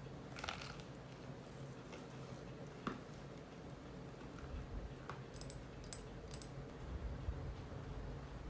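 Quiet eating sounds: soft mouth clicks and chewing, with three sharp, crisp clicks a little past halfway.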